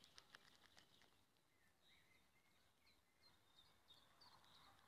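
Near silence with faint, scattered bird chirps and short whistled calls.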